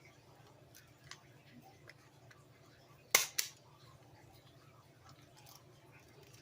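Two sharp snips or snaps in quick succession about three seconds in, with a few faint small clicks of handling around them over a low steady hum.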